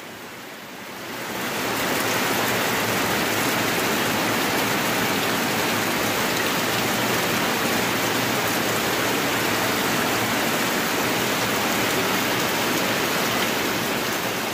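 Heavy rain falling on a wet concrete yard and into a brimming plastic bucket: a steady, even hiss that swells up over the first two seconds.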